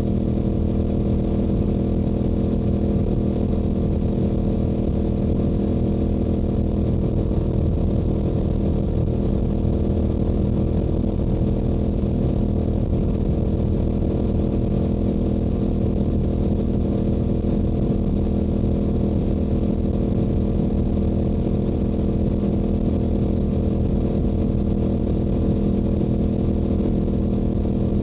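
Stock exhaust of a Yamaha YZF-R7's 689 cc parallel-twin engine running at a steady highway cruising speed, the engine note holding one pitch throughout, under a rush of wind noise.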